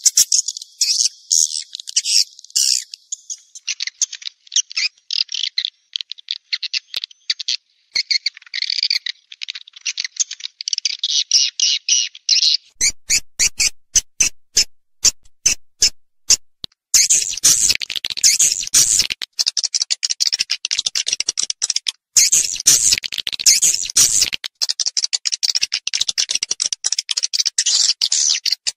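Swiftlet calls from a lure-sound track for attracting edible-nest swiftlets: a fast chain of high chirps and twitters. About halfway through there are a few seconds of sharp clicks, then the chirping grows denser.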